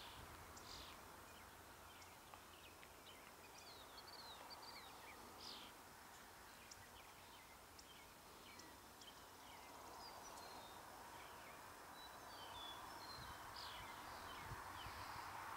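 Faint, scattered songbird chirps and short song phrases over quiet rural background noise. A steady wash of noise from an approaching diesel freight train grows slowly louder over the last few seconds.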